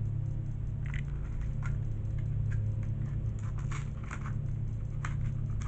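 Crinkling and clicking of a fidget spinner's cardboard-and-plastic retail package being worked open by hand, scattered at first and busier in the second half, over a steady low hum.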